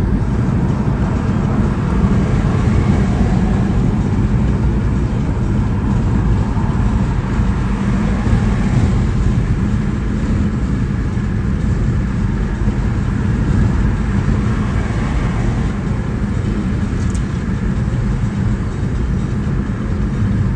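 Steady, low road and engine noise heard from inside a car's cabin while it drives along a highway.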